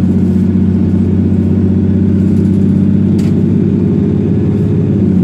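Cummins ISB6.7 six-cylinder diesel engine of a VDL DB300 double-decker bus running steadily under way, heard from inside the passenger saloon, its note easing slightly lower. A single short tick about three seconds in.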